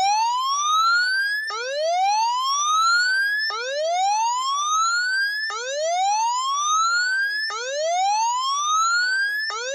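Electronic siren sounding a whoop tone: a rising sweep that climbs, cuts off and restarts low, about once every two seconds, five times.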